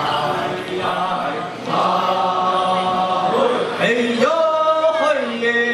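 Group of Amis men chanting a harvest-festival dance song in a circle, several voices singing long held notes on vocables while the melody slides between pitches.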